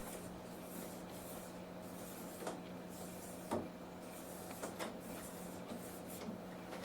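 Faint handling of the 3D printer's plastic extruder mount being clipped onto its slider: a few small clicks, the clearest a third of the way and halfway through, over a steady low hum.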